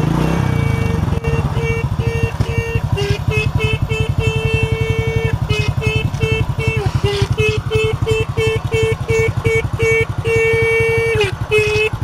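Motorcycle disc horn honking in many short beeps and a few longer held honks, a couple of which sag in pitch as they end, over the single-cylinder engine idling.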